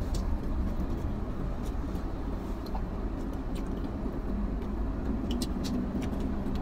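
Steady low rumble of a car's engine and road noise heard inside the cabin, with a few faint light clicks.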